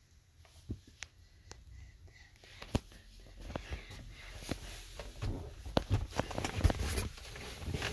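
Handling and movement noise inside a car: a few scattered clicks and knocks, then denser rustling and bumping from about three seconds in as someone shifts around among the leather seats, the phone handled close to the microphone.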